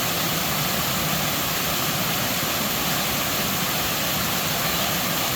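Waterfall: a steady, unbroken rush of falling water, strong in the hiss.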